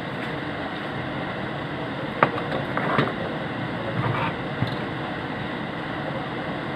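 A steady, even whooshing noise like a running fan, with a few short knocks and clicks a couple of seconds in.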